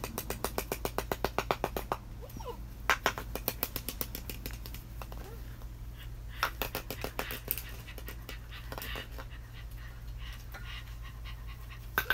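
Six-week-old German Shepherd puppies playing over toys, with puppy sounds and several runs of rapid clicking, about ten clicks a second.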